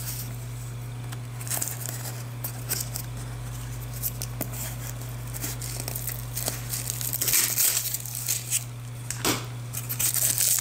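Small cardboard parcel box being pulled open by hand: tape and cardboard flaps tearing and crinkling in scattered crackles that get busier after about seven seconds and again near the end. A steady low hum runs underneath.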